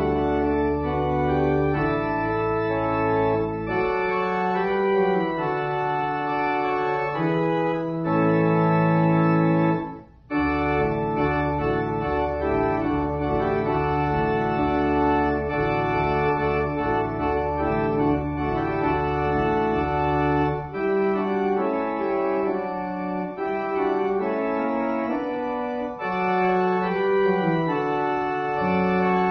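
Organ music: slow, sustained chords over held bass notes, with a brief break about ten seconds in.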